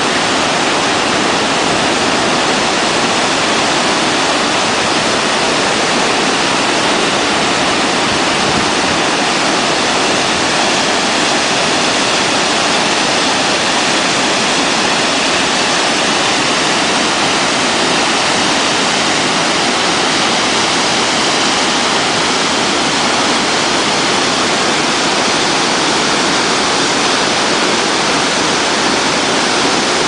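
Loud, steady rush of a high, heavy-flowing waterfall pouring down a rock cliff into the gorge below.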